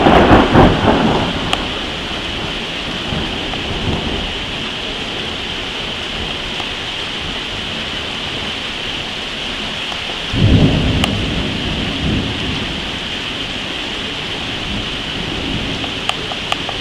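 Steady rain with two peals of thunder: one at the start that rumbles away over about a second, and another about ten seconds in that rumbles for a couple of seconds.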